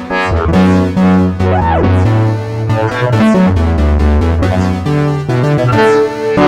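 Synthesizer music: keyboard notes and chords over a bass line, with a short pitch bend that rises and falls about a second and a half in.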